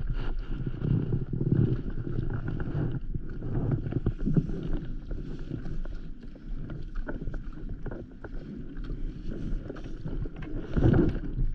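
Wind buffeting the microphone and water slapping against a stand-up paddleboard, with scattered knocks and rubbing as a rope is hauled in by hand.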